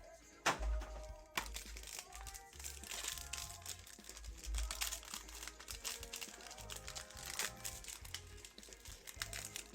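Crinkling of foil trading-card pack wrappers being handled and torn open, with a sharp crackle about half a second in, over background music.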